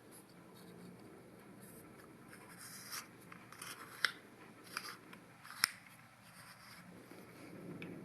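Faint handling of a Camlock helicoil pre-winder tool and Helicoil thread insert: light rubbing and a few small clicks, the loudest a little past halfway.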